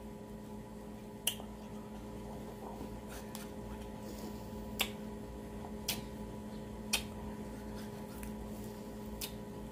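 Frozen freeze pop in a clear plastic sleeve being squeezed and worked up with the fingers: about five small, sharp clicks and squishes spread out over a steady low hum.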